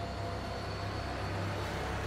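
Eerie ambient outro music: a steady low rumbling drone under an even, hiss-like wash, with no beat or melody standing out.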